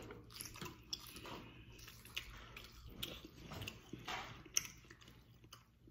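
Faint close-up eating sounds: chewing and lip smacks, with scattered small irregular clicks.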